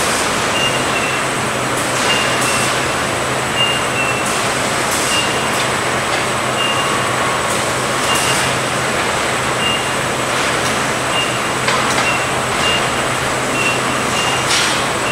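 Electric automated guided pallet trucks on the move, their warning signal sounding a short two-note beep every second or so over a steady hum and hiss. A few brief hisses come and go.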